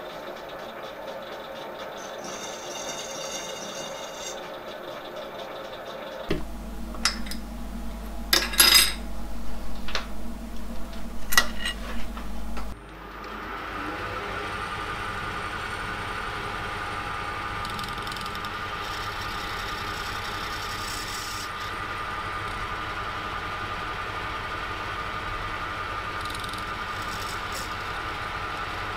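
A machine tool running steadily with a 0.4 mm slitting saw turning. It gives way at about six seconds to six seconds of loud, irregular sharp knocks and clicks. From about thirteen seconds a metal lathe runs steadily, turning a small brass part, with a steady whine over the motor hum.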